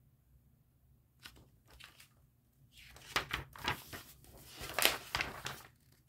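Handling noise from a picture book and the camera being moved: a near-silent start with a few faint clicks, then a quick run of rustling, crinkling scrapes and rubs from about three seconds in until just before the end.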